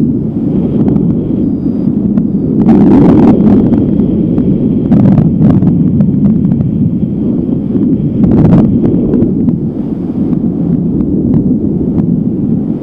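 Strong wind buffeting the microphone: a loud, steady low rumble with several sharper gusts.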